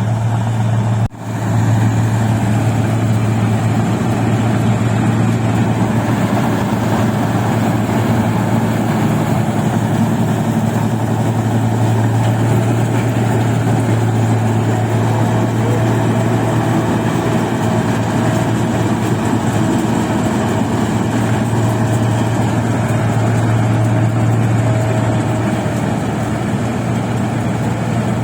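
Rice combine harvester's diesel engine running steadily with a strong low hum while harvesting paddy; the sound briefly drops out about a second in.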